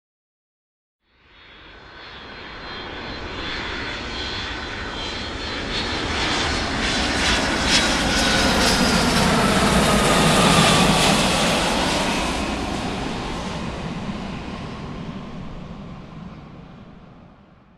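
Fixed-wing airplane flying past. After about a second of silence it rises steadily to its loudest a little past halfway, with a whine that drops in pitch as it goes by, then fades away.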